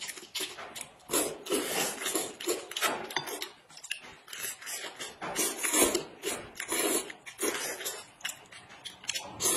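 Close eating sounds: noodles slurped and corn on the cob bitten and chewed, in quick irregular smacks and slurps.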